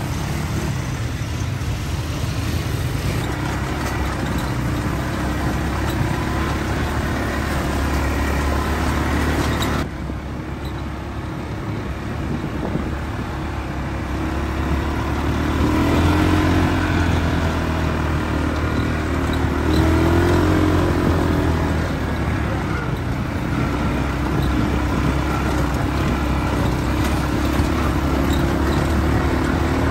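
ATV engines running as the quad bikes ride along a dirt trail, a steady drone with rumble. The sound drops sharply about ten seconds in, and the engine pitch rises and falls a few times with the throttle in the second half.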